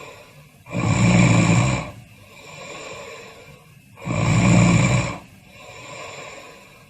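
Snoring: two loud snores, one about a second in and one about four seconds in, each lasting about a second, with quieter breathing between them.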